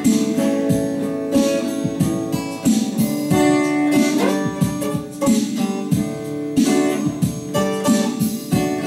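Twelve-string acoustic guitar played solo, strummed chords mixed with picked notes in a steady rhythm, with a brief rising slide in pitch about four seconds in.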